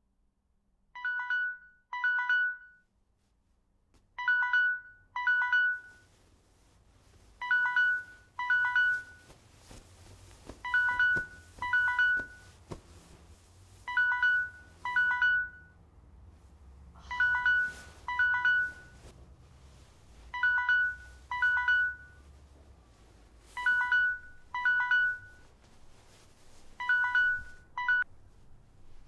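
A phone ringtone ringing: short two-note rings in pairs, each pair repeating about every three seconds, nine times over, then stopping near the end.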